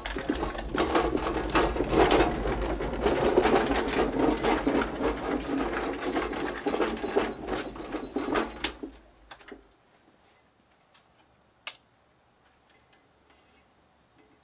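Rapid mechanical clattering over a steady low hum, stopping abruptly about nine seconds in, followed by a few faint ticks and one sharp click.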